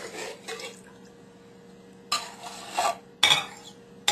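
A metal spoon scraping and knocking against a can and a mixing bowl as condensed cream of mushroom soup is emptied out for gravy. It comes as a few short, separate scrapes and clinks, the loudest a little after three seconds in.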